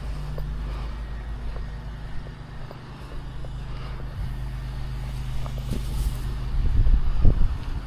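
Soft-wash rig's pump engine running steadily with a low hum. Low thumps and rumbling come in about six seconds in.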